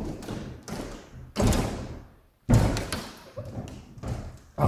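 A window being closed: several thuds and knocks, the two loudest about a second and a half and two and a half seconds in, with smaller knocks between.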